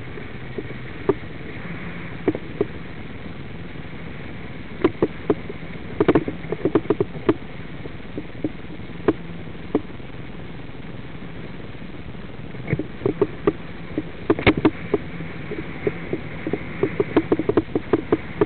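Steady road and engine noise inside a moving car, broken by irregular clusters of sharp clicks and knocks: a burst partway through, another past the middle, and a denser run near the end.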